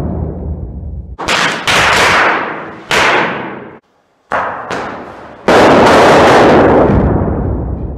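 Multi-shot firecracker grenade going off: about six loud bangs in quick succession, each followed by a fading tail, with a brief break just before the middle.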